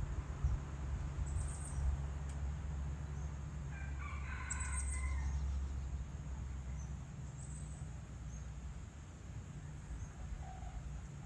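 A rooster crows once, about four seconds in, a pitched call lasting about a second and a half. A low steady rumble runs underneath, with a few short, high thin chirps.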